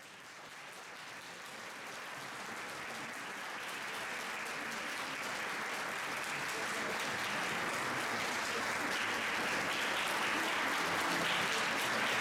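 Audience applauding, growing steadily louder.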